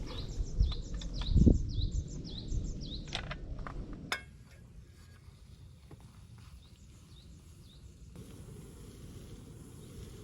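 Outdoor ambience with a bird calling in quick, short falling chirps, about three a second, over a low rumble and a few sharp knocks. About four seconds in it cuts to quieter ambience with fainter, sparser chirps.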